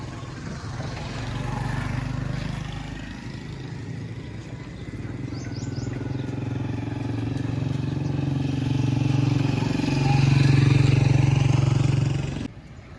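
A small engine, likely a motorcycle's, running close by with a steady low drone that grows gradually louder, then cuts off abruptly near the end.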